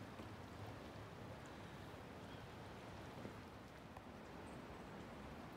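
Faint, steady rush of a flowing river.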